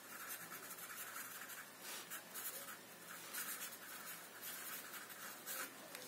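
Pen writing on paper: a run of faint, quick scratching strokes as a word is written out in joined-up letters.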